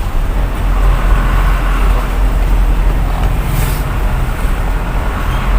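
Isuzu 4HL1 common-rail diesel truck engine running steadily under way, heard from inside the cab with road noise. It runs smoothly without stalling now that its hard-starting and stalling fault has been repaired.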